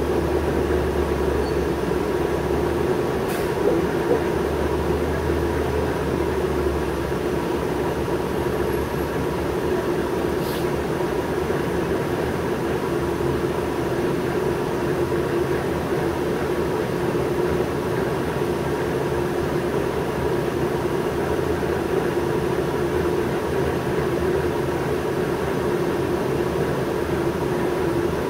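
Cabin sound of a New Flyer C40LF natural-gas transit bus: a low rumble for the first several seconds as the bus comes to a stop, then the engine idling with a steady hum.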